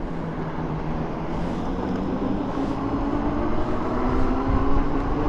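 Electric hub motors of a 72-volt fat-tire e-bike whining under power, the pitch rising steadily as the bike gains speed, over wind rumbling on the microphone.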